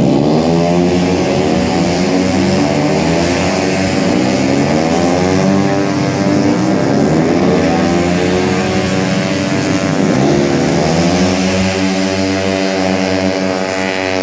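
Several tuned 130cc automatic-scooter racing engines running hard together, their pitches rising and falling as the bikes pass and change revs, settling to a steadier drone near the end.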